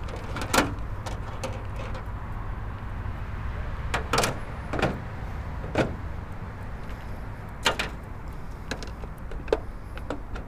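A handful of short, sharp knocks and clicks, a second or more apart, over a steady low rumble: fishing tackle and the jon boat's hull being bumped while the angler works a lure.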